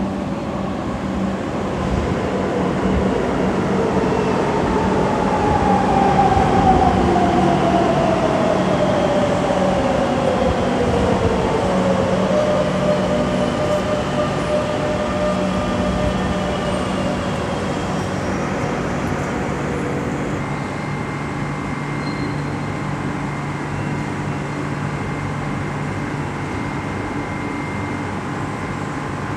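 Metro train pulling into an underground station and slowing to a stop: a whine falls steadily in pitch over several seconds as it brakes, then gives way to a steady hum as the train stands at the platform.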